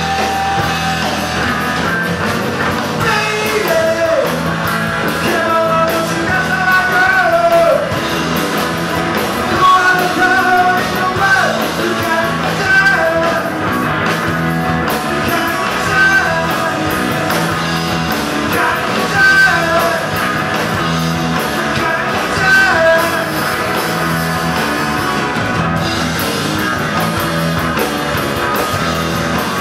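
Live rock band playing: electric guitars, bass guitar and drum kit, with a lead melody line that bends up and down in pitch over the band.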